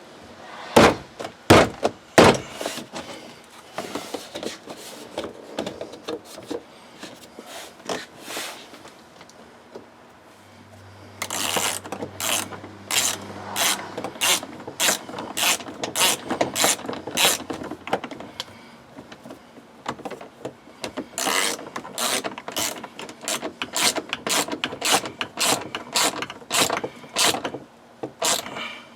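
A few sharp knocks about a second in, then a hand ratchet wrench clicking in quick runs, driving in a bolt that holds the door handle.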